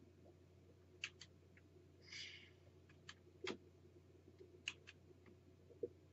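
Near silence with faint, scattered clicks of a computer mouse, a pair about a second in and single ones later, paging through slides. There is a brief soft rustle about two seconds in and a low steady hum underneath.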